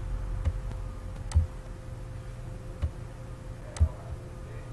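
Computer mouse button clicking: four short, sharp clicks spaced unevenly over about four seconds, over a low steady background hum.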